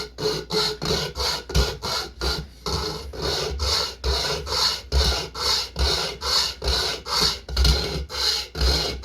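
Hand-pulled pocket chainsaw being drawn back and forth through wood in quick, even rasping strokes, about three a second. The chain binds as the cut deepens, so the cut is not smooth.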